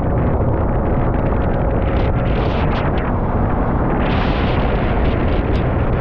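Wind buffeting the microphone: a loud, steady, low rumble with no let-up.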